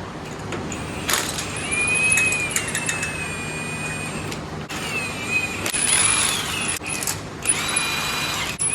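A power tool whining in several spells, its pitch sagging and recovering as it comes under load, with a few sharp clicks between.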